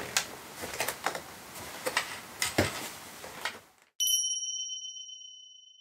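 Soft rustling with a few light clicks, then the background cuts out abruptly and a single bright ding rings out and fades over a couple of seconds, an edited-in chime sound effect.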